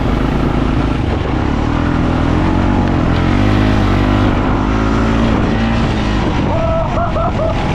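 ATV engine running under throttle while riding through mud, its pitch rising and wavering through the middle as the throttle is worked, over a heavy low rumble.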